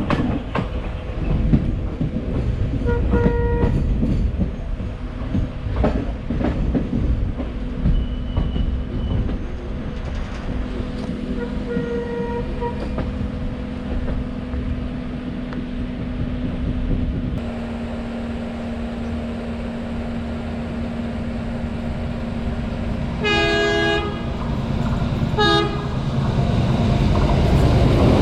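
A train running on the line, wheels rumbling and clattering, with short horn toots early on and two louder horn blasts near the end as the sound grows louder.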